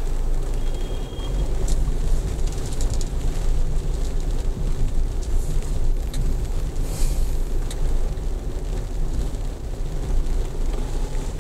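Low, steady rumble of a car's engine and tyres on a wet road at low speed, heard inside the cabin through a dash camera's built-in microphone, with scattered light ticks.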